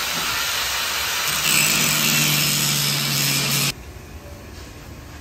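Angle grinder grinding the cut edge of a steel roof rack, a loud even rush. About a second and a half in it grows louder and a steady motor hum joins it, then it cuts off suddenly after nearly four seconds.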